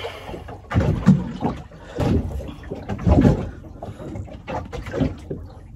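Irregular knocks and thumps around a small fishing boat, about one a second, over a low steady rumble.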